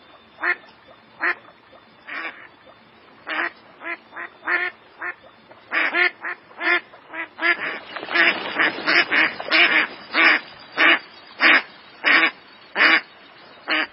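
American black duck quacking: a string of short quacks, scattered at first, then coming faster and louder, about two a second, through the second half.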